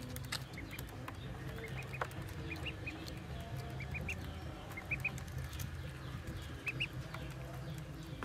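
Ducklings peeping: short high cheeps, often in quick pairs, every second or so, with faint clicks of bills pecking at feed. A steady low hum runs underneath.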